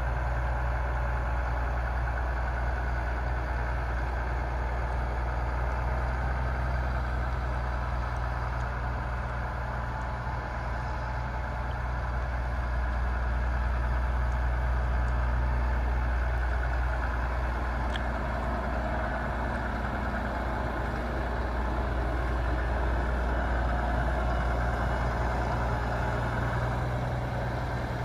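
2015 New Holland T6.175 tractor's diesel engine running steadily as the tractor drives slowly over snow, getting a little louder around the middle.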